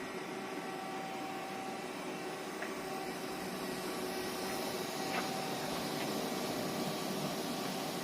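Murata MW100 twin-spindle CNC lathe running: a steady machine hiss and hum with a few constant tones.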